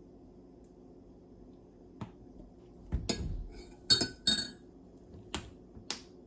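Spoon clinking against a mug while honey is spooned into a hot toddy. A dull knock comes first, then four sharp ringing clinks, the loudest two close together.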